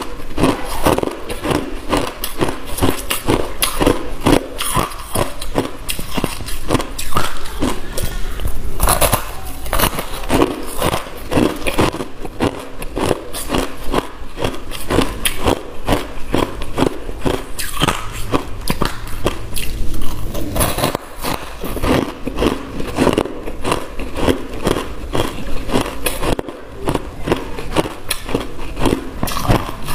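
Crushed white ice being bitten and chewed close to the microphone: a dense, continuous run of sharp, loud crunches.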